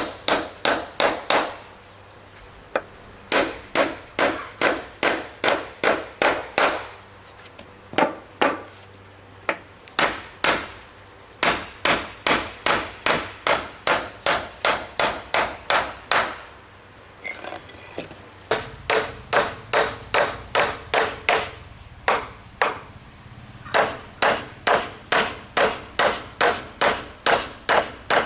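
Hammer blows striking wood, in fast even runs of about three strikes a second, broken by short pauses.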